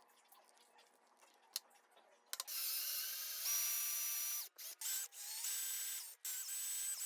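Electric drill motor whining in several short bursts, switched on and off about five times. The whine jumps in pitch as it comes up to speed.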